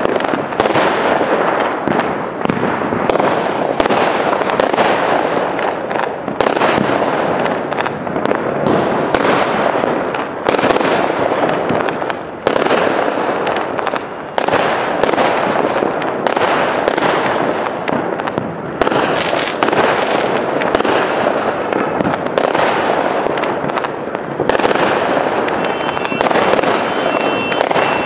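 Aerial fireworks display: a continuous barrage of shells bursting, sharp bangs one or two a second over a dense, unbroken wash of crackle and rumble.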